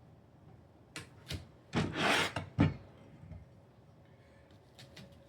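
Parts of a small desktop server rack being handled and fitted: a few sharp clicks and knocks, with about a second of rubbing and scraping near the middle, then faint clicks near the end.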